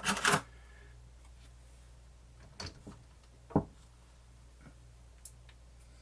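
A few separate clicks and knocks from handling a small portable cassette player, the sharpest about three and a half seconds in, over a faint steady hum.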